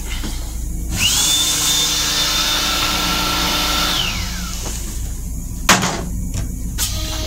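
Hand dryer built into the sink unit starting up: its whine rises quickly, holds steady for about three seconds, then winds down. A sharp knock follows near the end, with a smaller click after it.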